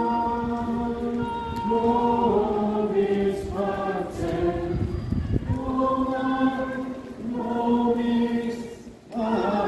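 A crowd of people singing a hymn together in unison, in slow phrases of long held notes.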